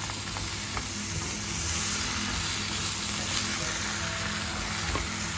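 Stir-fry of bitter melon, eggplant and prawns sizzling in a hot wok, with a few light clicks from the stirring utensil.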